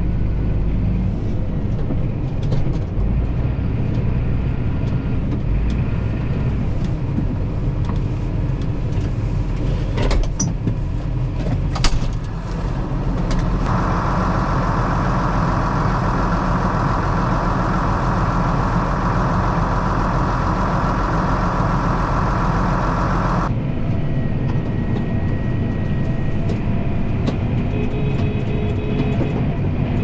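Farm tractor engine running steadily as the tractor drives along. A couple of sharp knocks come about ten and twelve seconds in, and a higher-pitched hiss joins for about ten seconds in the middle, then cuts off suddenly.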